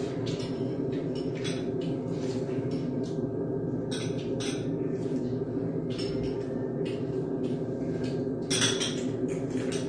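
Spoon and chopsticks clinking against ceramic bowls and dishes while eating: short, irregular clinks, one louder near the end, over a steady low hum.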